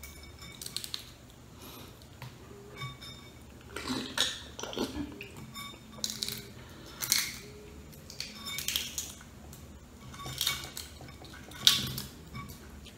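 Shell of a balut duck egg being cracked and picked off by hand over a ceramic bowl: scattered small crackles and light clinks, coming in short clusters every second or two.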